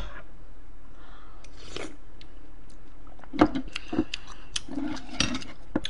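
Chewing food close to the microphone, with wet mouth smacks and a few sharp clicks clustered between about three and five and a half seconds in.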